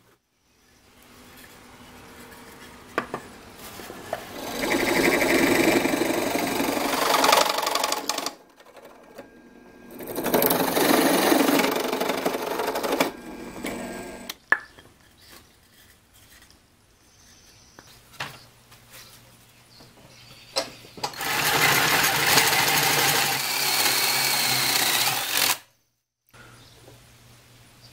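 Power drilling into wood in three bursts of about three to four seconds each, from a drill press with a spade bit and a hand-held drill. Light clicks and knocks of handling come between the bursts.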